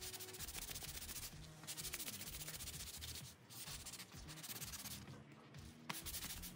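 A thin scroll-sawn wooden cutout being hand-sanded with a sanding block: quick rubbing strokes of abrasive on wood, with a few brief pauses.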